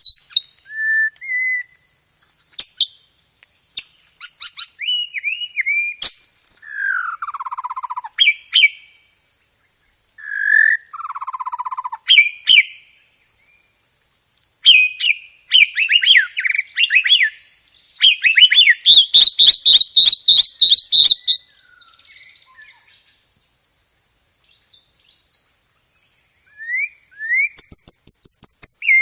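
White-rumped shama (murai batu) singing loud, clear, varied phrases: sliding whistles and chattering notes, with a fast volley of rapidly repeated notes (a 'roll tembak') in the last third that is the loudest part.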